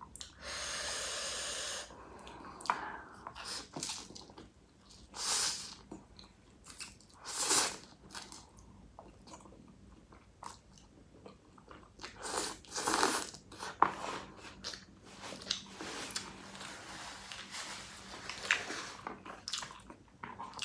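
Close-miked eating of spicy noodles: a long slurp near the start, then shorter slurps and wet chewing with scattered clicks of the mouth.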